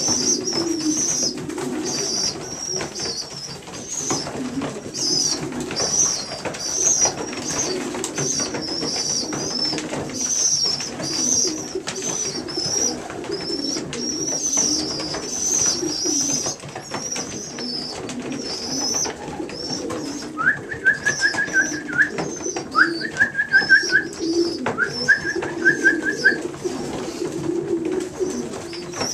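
Young racing pigeon squeakers peeping in a continuous high, wavering chorus, with pigeons cooing low underneath and faint scattered clicks. About twenty seconds in come three short, rapid trills, a little lower than the peeping.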